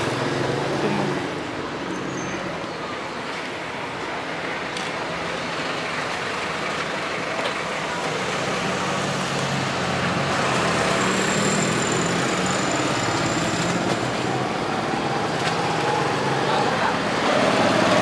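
Steady road traffic noise, with faint voices.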